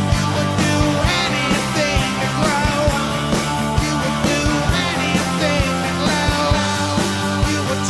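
Background rock music with a steady drum beat and a wavering lead melody.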